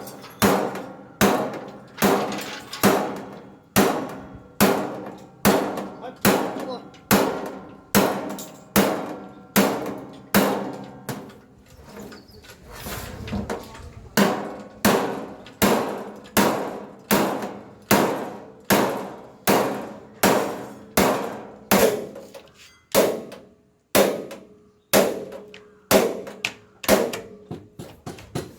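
Hammer blows on steel sheet being shaped for a car's body panels: a steady run of sharp, ringing metallic strikes, about five every four seconds, with a short lull about twelve seconds in.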